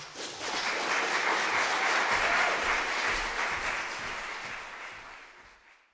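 Audience applauding, swelling within the first second and then slowly dying away.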